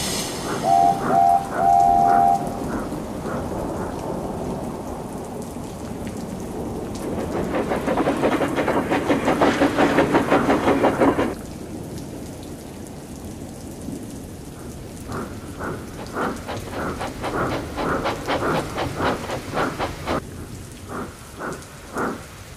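Steam locomotive sound effects over a steady rain and thunderstorm track: a whistle gives three short toots near the start, followed by rhythmic chuffing. About halfway a long rumble builds and cuts off suddenly, and later another run of steam chuffs comes in.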